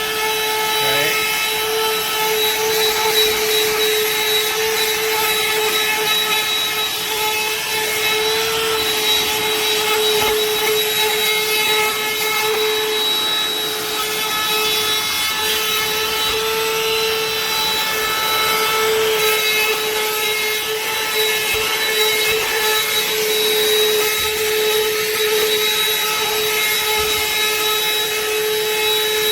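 BLACK+DECKER BDH2000L 20-volt cordless dustbuster handheld vacuum running continuously while picking up debris. Its motor makes a loud, steady whine.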